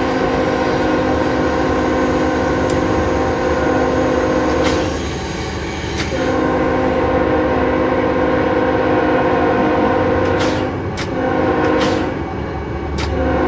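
Locomotive air horn blowing in the grade-crossing pattern, heard from inside the cab: a long blast, a second long blast, a short one, and a final long one starting near the end. A steady low rumble of the moving locomotive runs underneath.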